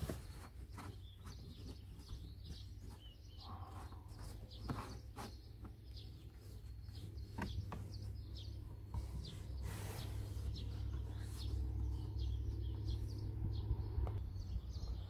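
Rustling and light knocks and clicks of a car's trunk carpet lining and plastic trim being handled and pushed back into place. Birds chirp faintly in the background over a steady low rumble.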